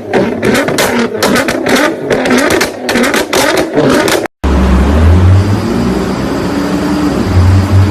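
Nissan GT-R R35's twin-turbo V6 heard in two clips. First comes a rapid, irregular crackling. Then, after an abrupt cut about four seconds in, the engine runs with a deep note as the revs rise and fall.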